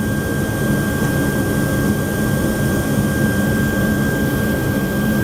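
Lanair waste oil burner firing on the boiler, running with a steady rushing noise and a thin, steady high whine.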